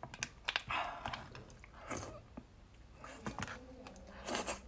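Close-up eating sounds: a metal spoon scraping and clicking against the food, then chewing and wet mouth noises. There are several sharp clicks, with a longer noisy stretch about a second in and another near the end.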